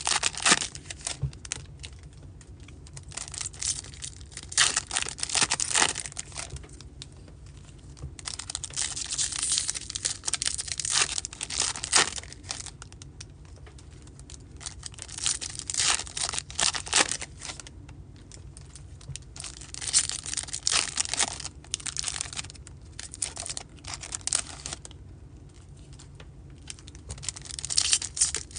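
Plastic baseball-card pack wrappers being torn open and crinkled by hand, in bursts of crackling every few seconds with quieter handling between.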